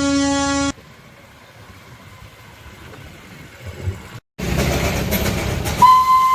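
Darjeeling Himalayan Railway toy train: a rich, low whistle blast cuts off under a second in. After a quieter stretch and a brief break, the train runs with a loud low rumble. A high, steady whistle starts near the end.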